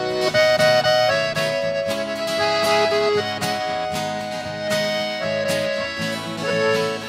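Accordion-led instrumental intro of a sertanejo ballad (modão), with guitar accompaniment.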